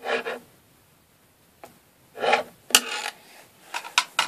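A thin stick scraping inside the nozzle of a plastic glue bottle, in four or so short bursts, most of them a few seconds in.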